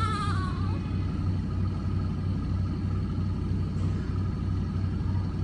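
Steady low electric hum, like an appliance motor running, with a baby's cry trailing off in the first moment.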